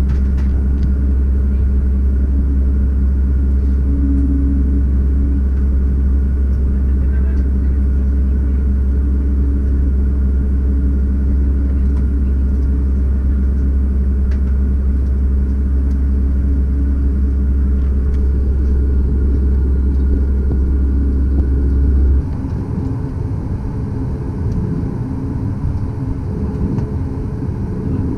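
Cabin noise inside a Boeing 737 MAX on the ground: a steady deep rumble with a constant hum over it. About 22 seconds in the deepest part of the rumble cuts off suddenly and the sound becomes quieter.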